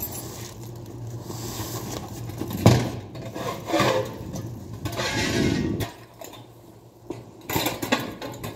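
Scrapes, scuffs and knocks from a large shrink-wrapped cardboard cargo box being tipped and shifted on a tiled floor, with a metal hand truck brought up beside it. One sharp knock comes a little under three seconds in.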